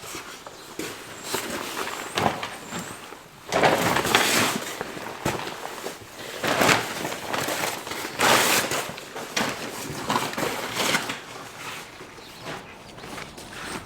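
Irregular crunching and rustling steps, with several louder bursts a second or so long.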